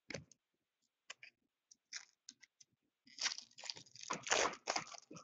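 A few light clicks of trading cards being handled, then, about three seconds in, a dense crinkling as a shiny foil card pack wrapper is torn open and crumpled.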